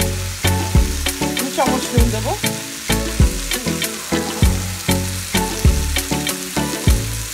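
Background music with a steady beat, over the sizzle of vegetables frying in masala in a steel wok.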